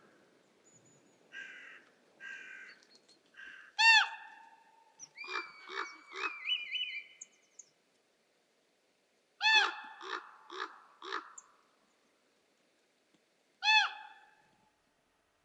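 Calls of large birds: loud, ringing calls come singly and in short groups, with a group of about five near the middle and a lone call near the end. Softer, rougher calls come early on, and one call around six seconds in is drawn out and wavering.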